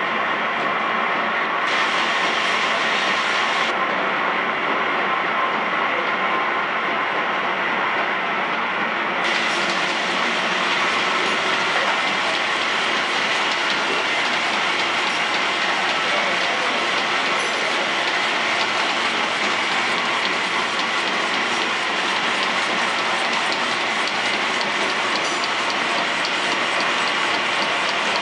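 Biscuit production and packaging line machinery running: conveyors and a flow-wrap packing machine make a steady mechanical clatter with dense, rapid ticking. The sound grows brighter and hissier about nine seconds in.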